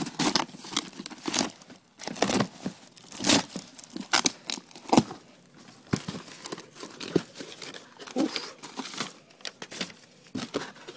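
Packaging being torn open and crumpled by hand, with quick, irregular rips and crinkles.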